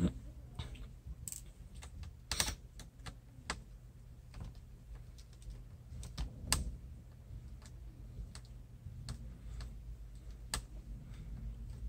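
Small screwdriver undoing the LCD-mounting screws in a ThinkPad X230's lid: irregular light clicks and ticks of the metal tool and screws against the panel frame, over a steady low hum.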